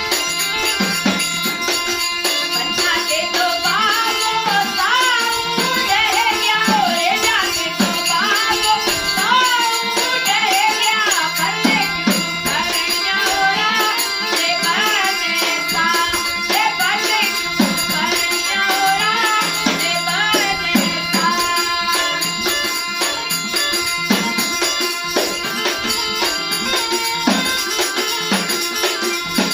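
Rajasthani folk music: a bending melodic line over regular hand-drum strokes and a steady shaken rattle or jingle, with the melody clearest in the first two-thirds.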